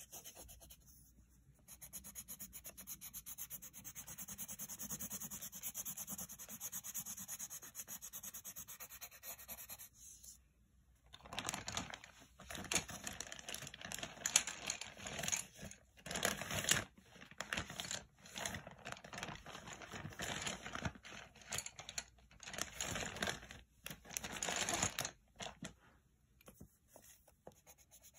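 Pencil rubbing back and forth on a paper page while a drawing is shaded in. For the first several seconds it is a soft, even rub. From about eleven seconds in until near the end it becomes a run of louder scratchy strokes with short pauses between them.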